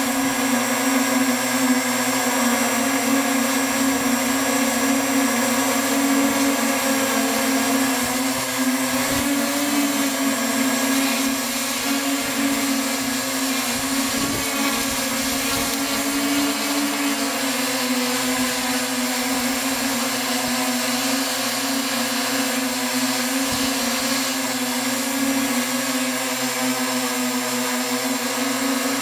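Octocopter's electric motors and propellers running steadily in flight, heard from the camera mounted on the craft. The steady motor drone shifts slightly in pitch now and then as the throttle changes.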